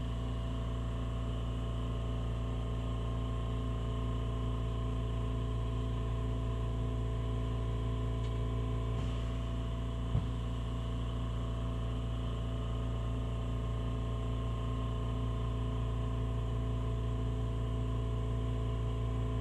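Oxy-propane torch flame burning steadily, an even rushing hiss over a low hum, with one faint click about ten seconds in.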